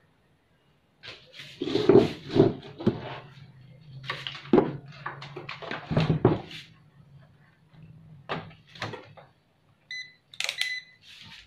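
Knocks and clatter of a CRT TV circuit board and a multimeter being handled and set down on a workbench, loudest in the first half, with a few lighter clicks later.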